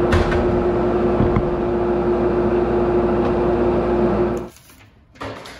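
Steady hum of a workshop dust extractor running, with a constant tone, that cuts off suddenly about four and a half seconds in; then a quiet room with one short knock.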